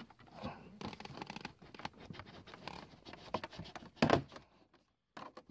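Plastic air vent being pulled loose from a van's engine cover: a run of small clicks, rattles and scrapes, with a louder knock about four seconds in.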